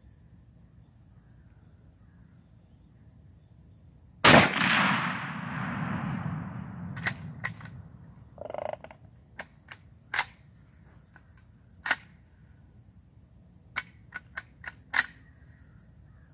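A single shot from a Mossberg lever-action .30-30 rifle about four seconds in, its echo fading over about three seconds. After it come a dozen or so short, sharp metallic clicks and clacks, spread over the next eight seconds, as the lever action is worked.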